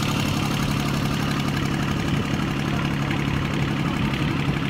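Boat engine idling steadily with an even low hum.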